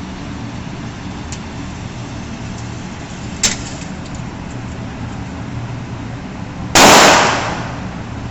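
A single very loud handgun shot a little under seven seconds in, fading out over about half a second, over a steady low hum. A much quieter sharp click comes about three and a half seconds in.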